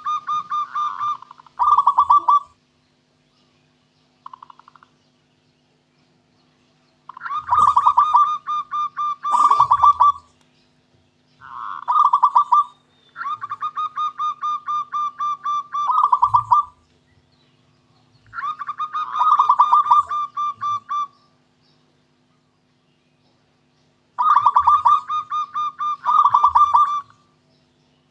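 Zebra dove (local perkutut) singing its staccato cooing song: bouts of rapid, rolling coo notes, each lasting one to three seconds, repeated about seven times with short pauses between.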